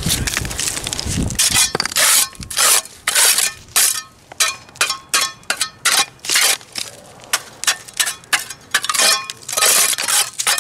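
Metal hand tool striking and chipping at a stone step and its old mortar, a run of sharp ringing knocks about twice a second as the broken stone and mortar are broken loose.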